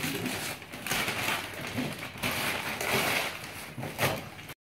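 Gift wrapping paper tearing and rustling as it is ripped off a large cardboard box, in several rough spells.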